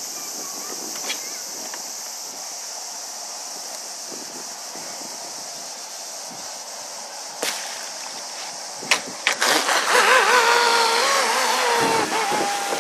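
Electric RC speedboat pulling away at speed: after a steady hiss and a couple of sharp clicks, its water-cooled brushless inrunner motor and propeller start a loud whine about nine seconds in, with water hiss. The pitch wavers and dips slightly near the end as the throttle changes.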